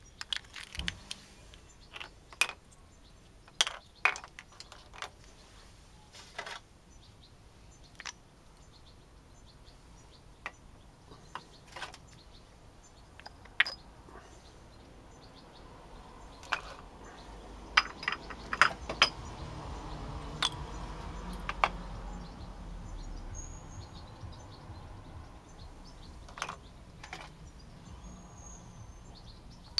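Small hard orgonite pieces, resin with metal shavings cast in aluminium bottle caps, clicking and clinking as they are handled and set down in a metal tray, in sharp separate taps. A low rumble swells through the middle and fades.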